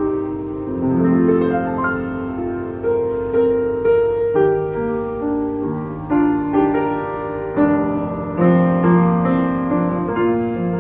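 1986 Yamaha UX-1 upright piano being played in a sound check: a gentle piece of chords and melody with many notes held and left to ring.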